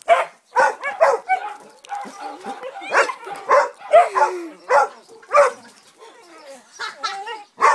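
English springer spaniel barking excitedly in quick succession while leaping about, with a drawn-out falling note about four seconds in and a short lull around six seconds.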